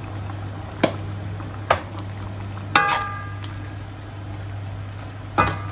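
Coconut-milk sambal simmering in a pan with a steady bubbling hiss, while a utensil stirs it and clinks against the pan four times; the clink about three seconds in rings briefly. A low steady hum runs underneath.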